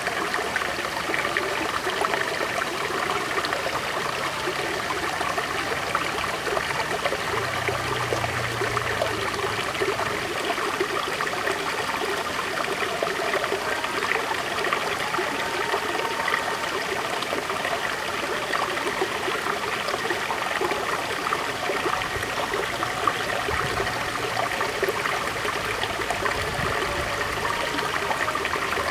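River water flowing steadily over stones, a continuous babbling rush with fine trickling and gurgling.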